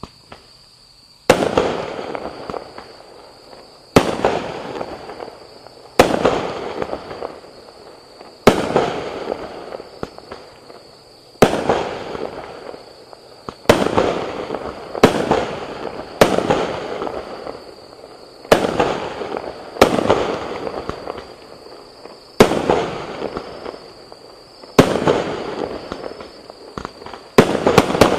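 A "Krutoy Virazh" consumer fireworks cake (multi-shot battery) firing shot after shot, about one every two seconds: each is a sharp bang followed by a second or two of fading crackle, with two shots in quick succession near the end.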